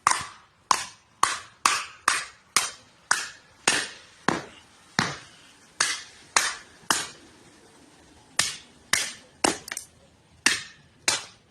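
Rubber mallet striking an old typewriter platen whose rubber has hardened glass-like, breaking it: about twenty sharp blows, roughly two a second, with a short pause about two-thirds through.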